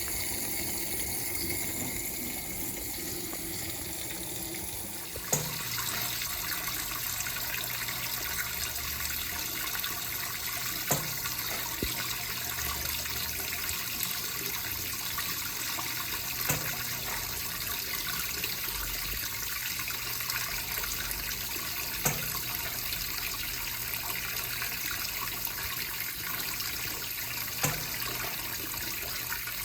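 Electrolux LPE16 top-load washing machine filling with water, a steady rushing hiss that starts suddenly about five seconds in. A sharp click sounds about every five and a half seconds.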